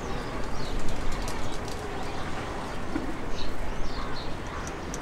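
Steady rumble of a distant jet airliner's engines as it rolls along the runway, with birds calling in short scattered bursts over it.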